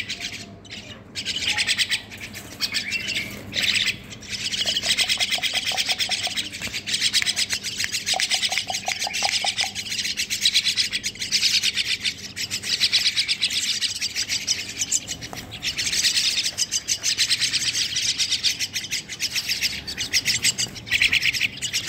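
A crowd of young common mynas calling together in a continuous, rapid chatter: the food-begging calls of fledglings gaping for food. There are brief pauses in the first few seconds.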